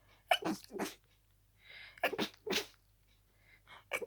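A person sneezing harshly in quick succession during a sneezing fit, with only a short breath drawn in between sneezes; the sneezes come from a head cold.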